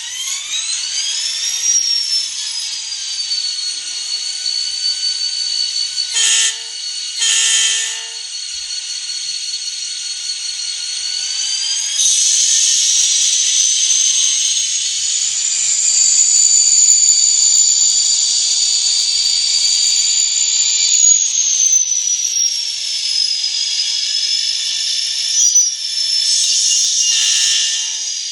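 Sound decoder of an N scale EMD SD40T-2 model locomotive playing diesel engine sounds through its tiny speaker. There is a rising whine as the engine spools up, then two short horn blasts about six and seven seconds in. The engine pitch rises about twelve seconds in and falls again after twenty seconds, and another short horn blast comes near the end.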